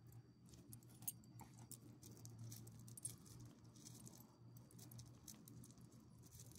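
Near silence: a low steady hum with a few faint, short clicks, the sharpest about a second in.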